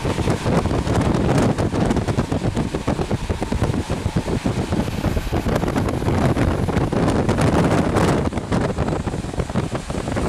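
A moving train heard from on board: a steady rumble of wheels on rails with rapid clicking and clattering over the rail joints and points, and wind on the microphone.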